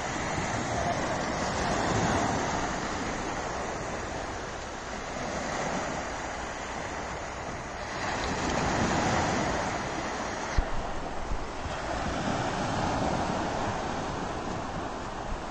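Small sea waves breaking and washing up a sandy beach, the surf swelling and ebbing every three or four seconds, with some wind on the microphone. A few brief sharp knocks a little past two-thirds of the way through.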